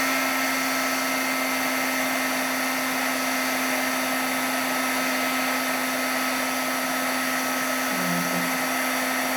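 Embossing heat gun blowing steadily with a constant motor whine, melting embossing powder on a metal-rim tag.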